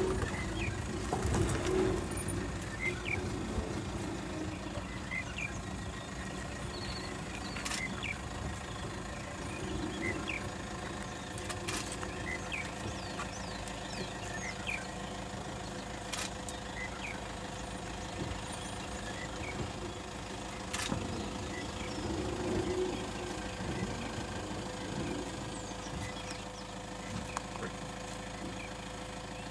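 Safari game-drive vehicle's engine idling steadily, with birds chirping now and then and a few sharp clicks.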